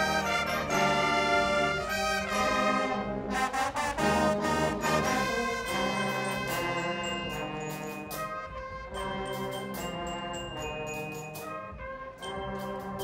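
Guggenmusik brass band playing: trombones and other brass horns sound loud held chords. Drum hits come through more clearly in the second half as the brass gets softer.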